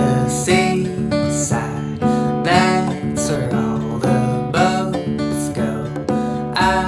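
Music led by a strummed guitar, its chords struck about twice a second.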